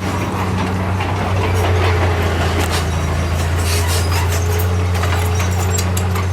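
Diesel engine of a heavy earthmoving machine running steadily at a low, even note, with scattered clanks and rattles over it.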